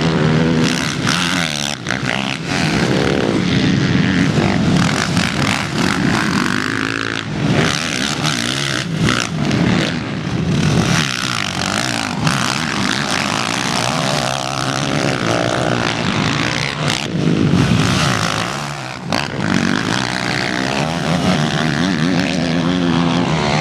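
Several motocross dirt bike engines racing on a dirt track, revving hard up and down so that the pitch keeps rising and falling as the bikes accelerate and pass, with a few brief dips.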